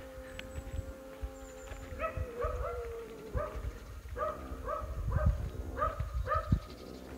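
An animal calling: short, pitched calls in pairs and small clusters, about two a second, starting about two seconds in, over a low rumble.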